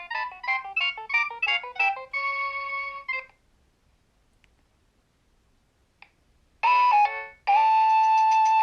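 Nokia 3100 mobile phone's built-in ringtone: a quick run of notes that ends on a held chord about three seconds in. After a few seconds of silence and a small click, the next tone starts with a short note and then a long, loud held note.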